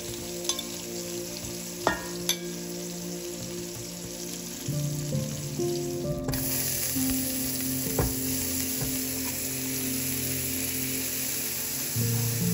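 Food sizzling as it fries in a hot pan, the sizzle growing louder about halfway through, with a few sharp clicks.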